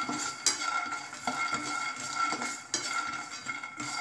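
Raw peanuts being dry-roasted in a nonstick frying pan, rattling and skittering as a slotted spatula stirs and scrapes them around, with a steady high tone underneath.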